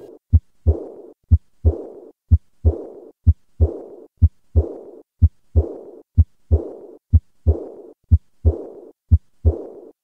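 Heartbeat heard through a stethoscope, about one beat a second. Each beat is a short low first sound, then a second sound followed by a soft blowing murmur that fades away during diastole. This early diastolic decrescendo murmur at the left sternal border is the murmur of aortic insufficiency (aortic regurgitation).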